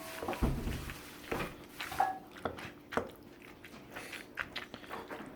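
A spoon stirring a thick pasta, tuna and cheese-sauce mixture in a pan, with irregular knocks and clicks of the spoon against the pan and one duller thump about half a second in.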